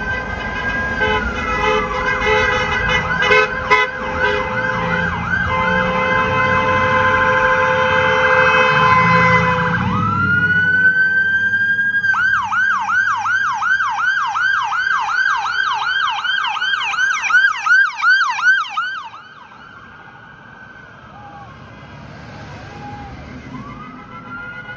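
Emergency vehicle sirens of passing fire trucks and police cars. A wail sweeps up and down, then switches to a fast yelp of about two to three cycles a second, over a steady horn tone and heavy engine rumble. About ten seconds in, a second siren wails up and yelps until it cuts off about 19 s in, leaving quieter traffic until another siren begins to wail near the end.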